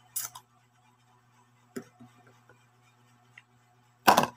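Handling noises from a plastic food bag being tipped out over a plate: a short crinkle of the plastic just after the start, a small knock a little under two seconds in, and a louder brief rustle near the end.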